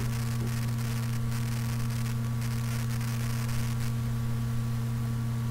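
Steady low electrical hum over faint hiss and crackle from a computer microphone recording with its noise suppression turned off.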